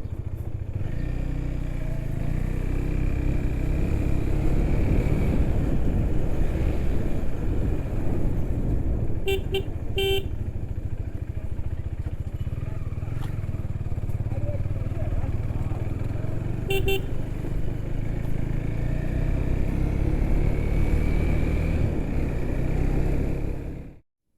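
Motorcycle riding on the road, its engine and road noise running steadily, with short horn beeps: two quick ones about nine to ten seconds in and another about two-thirds of the way through. The sound cuts out for a moment right at the end.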